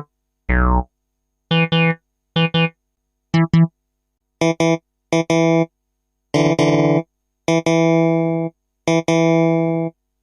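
A series of short synthesized keyboard tones separated by silences. A falling pitch glide comes near the start, then pairs of quick notes, then longer ringing notes toward the end.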